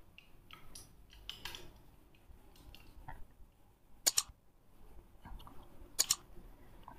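A cloth rubbing and swishing across a whiteboard as writing is wiped off, faint and uneven. Two sharp double mouse clicks about four and six seconds in, the click sound effects of an on-screen like-and-share button animation.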